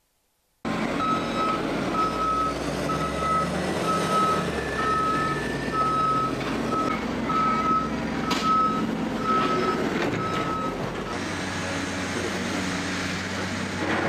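Heavy construction machinery's reversing alarm beeping steadily, about once every 0.8 seconds, over the machine's running engine, the beeping stopping about eleven seconds in.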